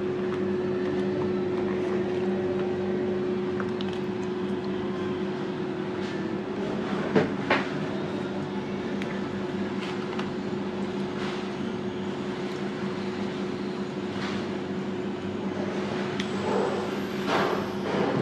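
A steady low mechanical hum holding two constant tones, with a few sharp clicks about seven seconds in and a few more small knocks near the end.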